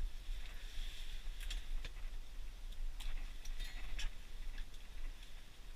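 Scattered light clicks and rustles from hands handling ice-fishing gear, over a steady low rumble.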